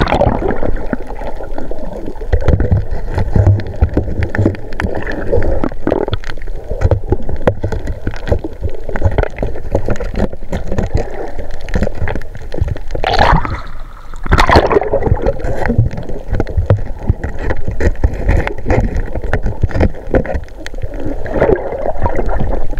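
Sea water gurgling and sloshing close to the microphone, with crackling and two louder rising gurgles a little past halfway.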